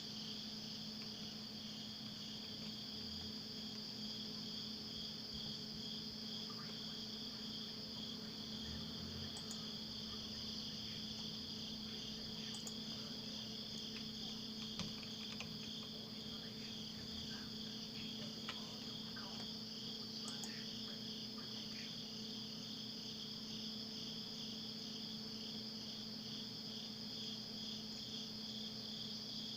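Crickets trilling continuously in a high, fast-pulsing chorus over a steady low hum.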